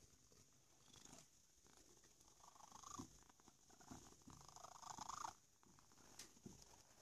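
A cat purring faintly while being brushed, with two swishing strokes of a bristle brush through its fur around the middle.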